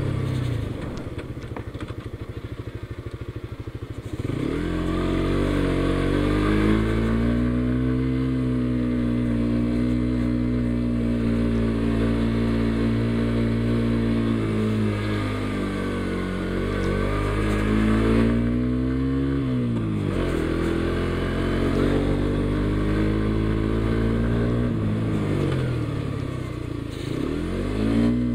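Suzuki GSX-S125's 125 cc single-cylinder four-stroke engine running under load up a steep climb. It runs low and pulsing for about the first four seconds, then the revs rise and hold, dipping and picking up again a few times as the throttle is worked.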